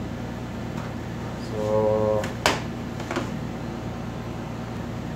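Steady low room hum, with a brief held hum-like tone about a second and a half in and a single sharp click about two and a half seconds in.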